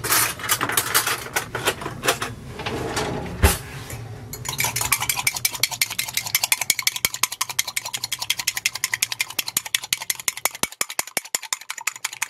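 Cutlery rattling in a drawer with a sharp knock, then a fork beating an egg in a ceramic mug: rapid, steady clicking of the fork against the mug from about four seconds in.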